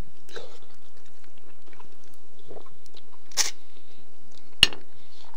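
A man eating boiled lamb-head meat, biting it off the bone and chewing, with soft wet mouth noises. A brief louder hiss-like sound comes past the middle, and a single sharp click about a second later.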